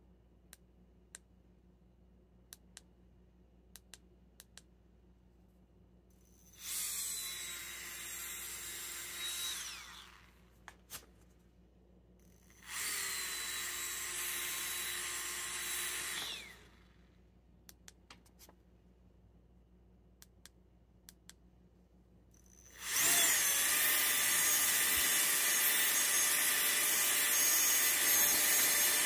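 Handheld KiCA Jetfan electric air blower run in three bursts: a high-pitched whine with a rush of air, spinning up and winding down each time, the third run louder and longer. Small clicks from button presses and handling in the gaps.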